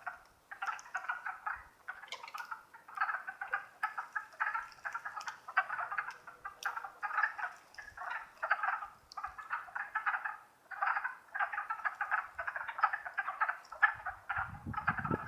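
Chorus of wood frogs, many short clucking calls overlapping in a continuous clatter. A few low thumps come in near the end.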